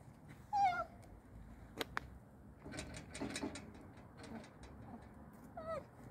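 A dog whining: a short wavering whine about half a second in and another near the end. Two sharp clicks come around two seconds in, with soft scuffling after them.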